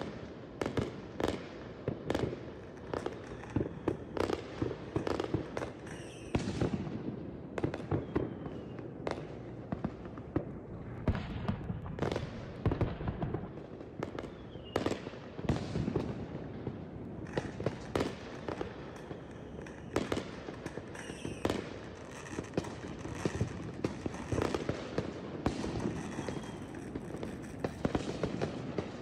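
Consumer fireworks going off continuously: rapid crackling and repeated sharp bangs, with a few short whistles.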